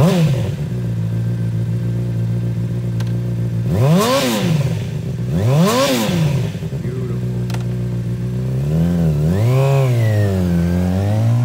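2008 Honda CBR600RR's inline-four engine, fitted with a Two Brothers aftermarket exhaust, catching and settling into a steady idle. The throttle is blipped twice, about four and six seconds in, the revs rising and falling quickly each time. Near the end the revs rise and dip unevenly as the bike pulls away.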